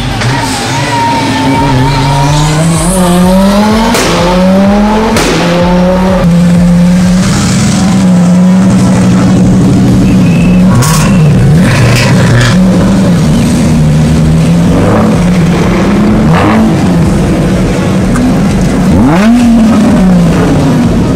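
Car engine revving hard with tyres squealing, as in drifting. The revs climb over the first few seconds, then hold high with a few brief dips, and drop and rise sharply once near the end.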